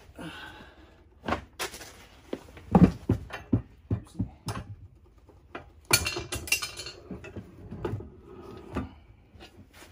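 Irregular metallic clunks, knocks and clatter as a Badlands Apex 12000 winch is handled and set onto a metal winch mounting plate. The loudest knock comes about three seconds in, with a busier burst of clatter around six seconds.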